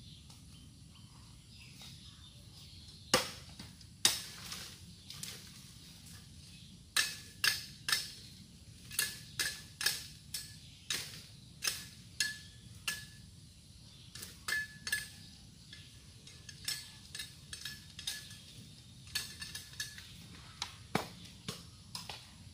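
A machete chopping at a bamboo stalk: repeated sharp strikes, two hard blows a few seconds in and then a steady run of about one to two a second, many followed by a brief high ring.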